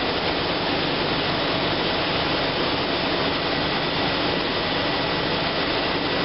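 Steady rushing noise of running industrial machinery and air, even and unbroken, with a thin high whine in it.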